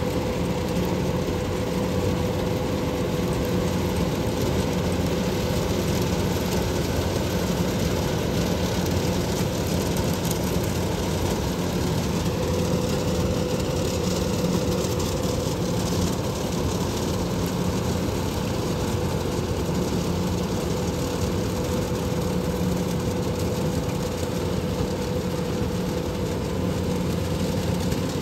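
Kubota DC-105X rice combine harvester's diesel engine running steadily under load as it cuts lodged rice, a constant drone with a steady hum.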